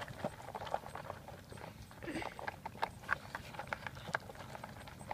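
A dog eating dry kibble from a plastic bowl: irregular crunching and sharp clicks of kibble, several a second.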